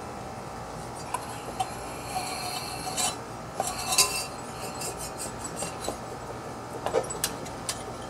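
Metal parts clinking and scraping as they are handled inside the opened crankcase of a Briggs & Stratton lawn mower engine, around the crankshaft and connecting rod. There are a few sharp clicks, a short stretch of scraping, and the loudest clink about four seconds in.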